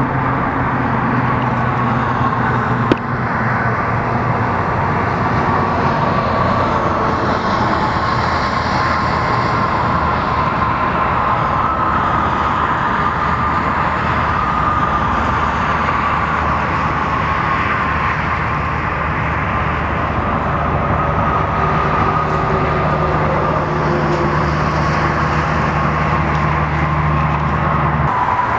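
Steady road traffic noise with a constant low engine hum, as of vehicles idling and passing on a busy highway. A single sharp click comes about three seconds in.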